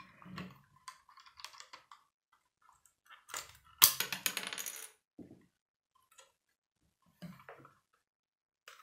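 Plastic Lego pieces being handled and clicked against each other, then a small loose Lego piece drops onto the hard wooden tabletop just before four seconds in and bounces with a sharp, ringing clatter that dies away over about a second.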